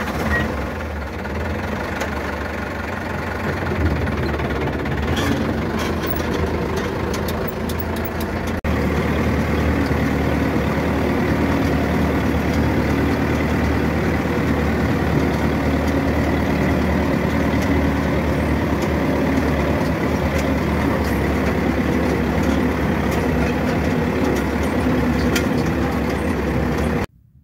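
Zetor 7211 tractor's four-cylinder diesel engine running steadily while the tractor drives along, heard from inside the cab. It turns louder about a third of the way through and cuts off just before the end.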